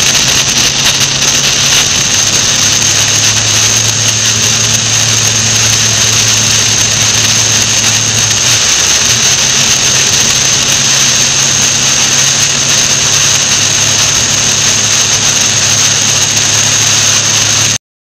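Motorcycle engine running at a steady cruise under heavy wind rush on the microphone, with a constant high whine; the engine note drops out briefly about eight seconds in. The sound cuts off abruptly at the very end.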